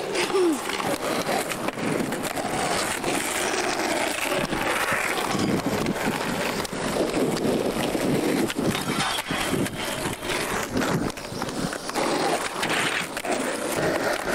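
Skateboard rolling on concrete, a steady wheel rumble broken by repeated sharp clacks and knocks as the board pops and lands on tricks.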